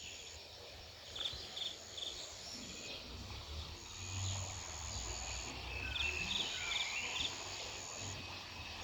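Night insects: a high, steady trill that sounds in stretches of a second or two, with short chirps in quick groups of three or four, over a faint low rumble.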